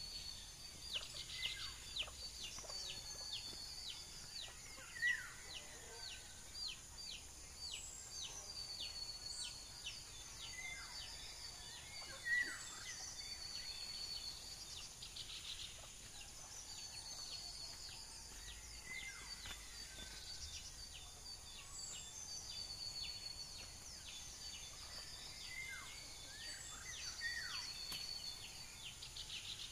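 Birds calling over a steady high-pitched insect drone. The birds give short falling calls and quick runs of higher chirps, and the loudest calls come about 5 and 12 seconds in.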